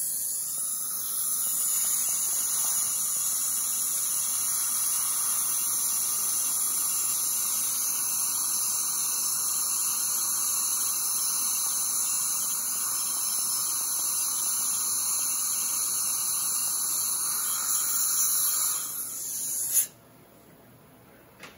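High-speed dental drill (handpiece) running steadily as it grinds down the chewing surface of a molar prepared for a zirconia crown, taking off more tooth where the opposing upper cusp showed too little clearance. It cuts off suddenly about two seconds before the end.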